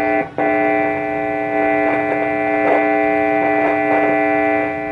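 Electric guitar played through a tube guitar amplifier under test after repair: a chord struck about half a second in rings out steadily for over four seconds, showing the amp passing signal.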